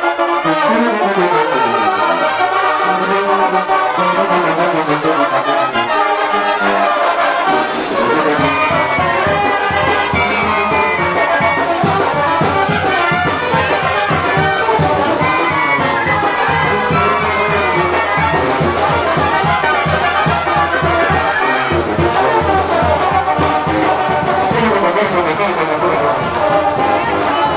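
Brass band music, trumpets and trombones playing a tune; about eight seconds in a low bass and a steady drumbeat join.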